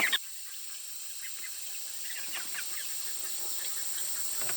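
Poultry chirping faintly over a steady hiss, coming back in after an abrupt cut near the start and growing gradually louder toward the end.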